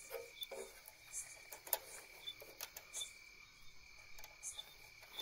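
Crickets trilling steadily, with a few sharp clicks and taps from hands handling the metal terminals and screws of a motor starter box.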